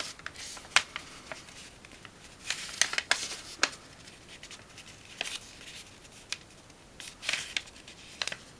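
A sheet of origami paper being handled, folded and creased by hand. Soft rustling is broken by sharp crackles and quick swipes, about eight of them scattered through.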